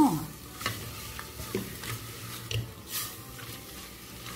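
Diced raw chicken breast frying with onion and garlic in lard in an aluminium pot, a steady sizzle, while a silicone spatula stirs it and scrapes the bottom of the pot a few times.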